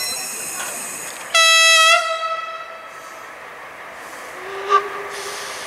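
A single short train horn blast, about half a second long, about a second and a half in, over the fading noise of a departing train. A much fainter short tone sounds near the end.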